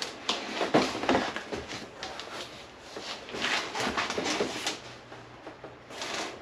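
Large cardboard box being turned around and handled, with irregular scuffs and rubbing of cardboard.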